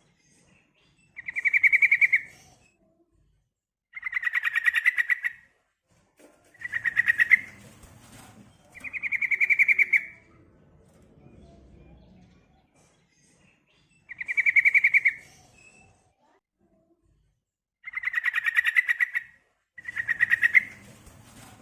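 Sooty-headed bulbul (trucukan) giving seven quick bouts of fast, rattling trills, each about a second long, separated by short pauses: a female's call, used as a lure to make males answer and sing.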